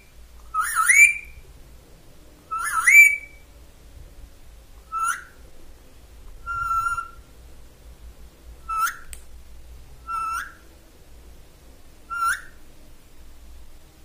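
Indian ringneck parakeet giving a series of about seven short rising whistled calls a second or two apart, one near the middle held on a steady pitch.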